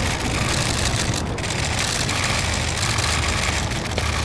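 A vehicle engine idling: a steady low hum under a constant hiss.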